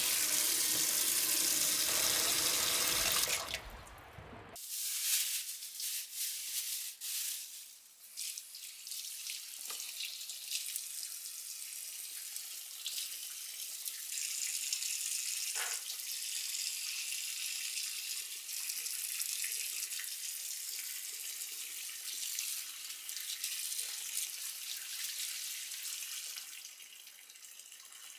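Tap water running hard into a stainless steel pot of clams for the first few seconds. Then it gives way to a softer, hissing stream of tap water over shrimp in a stainless steel colander, with a few small clicks as the shrimp are handled.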